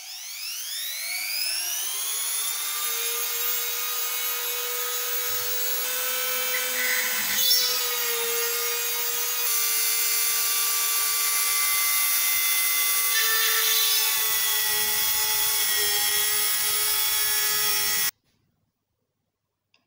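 Electric drill spinning up to speed with a rising whine, then running steadily as a thin bit bores into steel. It cuts off suddenly near the end.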